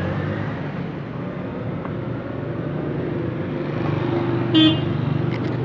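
Street traffic noise: vehicle engines running steadily with a low hum. A brief pitched sound, such as a horn or a call, stands out about four and a half seconds in.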